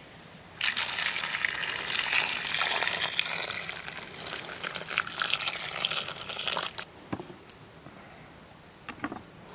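A stream of water pouring into a stainless steel bowl of whole tomatoes, filling it for about six seconds before stopping sharply. A few faint clicks follow near the end.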